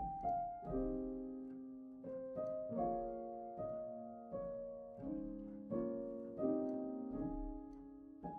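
Background music: a gentle piano tune of notes and chords struck one after another, each left to fade.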